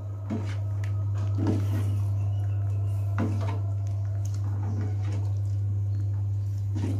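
A metal spoon stirs and scrapes in a stainless steel pot of soup, knocking softly against the pot every second or two. A steady low hum runs underneath.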